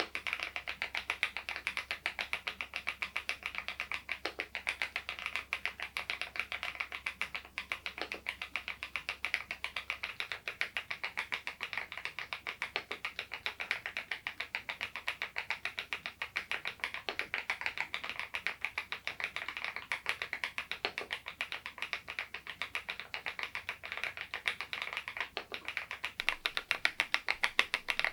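Continuous fast typing on an SPM PL108W full-size mechanical keyboard fitted with Baby White switches: a dense, even patter of key strokes, several a second, getting a little louder near the end.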